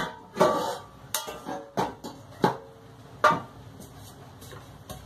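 Metal cookware clattering and clanking as a cooking pot is taken out and handled: about six knocks in the first three and a half seconds, some ringing briefly.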